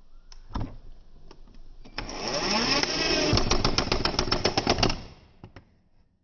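Cordless impact driver driving a screw: the motor spins up about two seconds in, and about a second later the hammer mechanism starts clattering in fast, even impacts as the screw tightens, then it stops about five seconds in.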